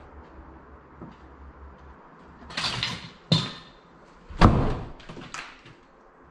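Old wooden door bumping and rattling: a scrape and a run of four sharp knocks in the middle, the loudest about four and a half seconds in.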